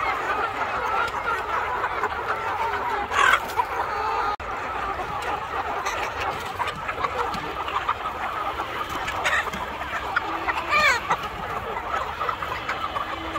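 A large flock of chickens clucking all together in a continuous chatter of overlapping calls. A couple of louder single calls stand out, about three seconds in and near the end.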